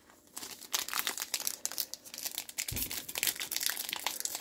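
Thin plastic or foil trading-card pack wrapper crinkling as it is handled, a dense run of fine crackles that starts about half a second in.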